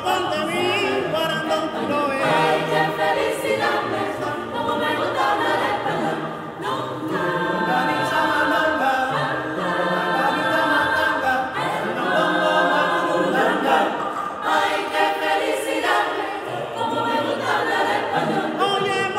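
Mixed choir of men's and women's voices singing a cappella, with a male solo voice leading in front of the ensemble.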